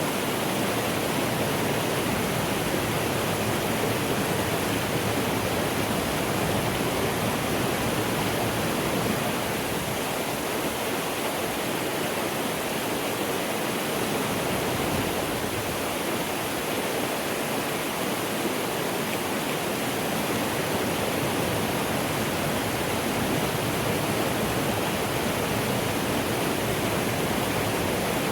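Mountain stream rushing steadily over rocks, a constant even wash of water noise.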